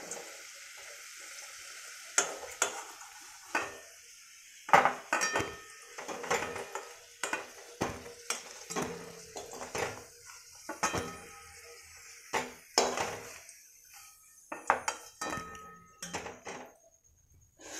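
A metal slotted spoon knocking and scraping against a metal kadai in a dozen or so irregular clinks, as fried potato pieces are scooped out of the oil. A faint sizzle of hot oil runs under the first two seconds.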